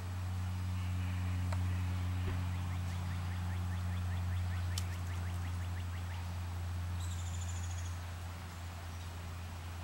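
A steady low hum with no break, its source not shown. Over it, birds call: a rapid run of short chirps through the middle, and a brief high trill about seven seconds in.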